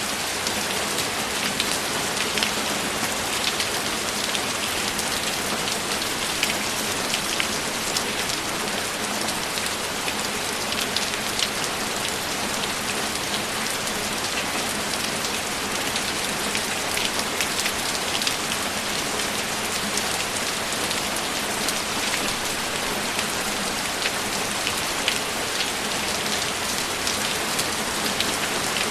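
Steady rainfall, an even hiss with the patter of individual drops striking a surface.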